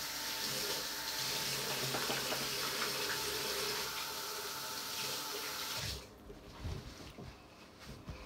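Tap running into a sink while hands are washed, a steady rush of water that is shut off about six seconds in, followed by a few faint knocks.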